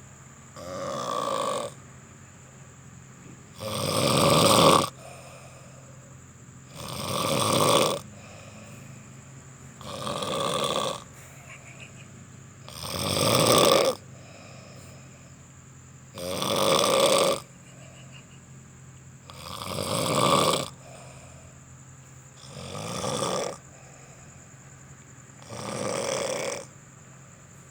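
A sleeping person snoring loudly and regularly, nine snores about three seconds apart. Each snore lasts about a second, swells in loudness and then stops abruptly.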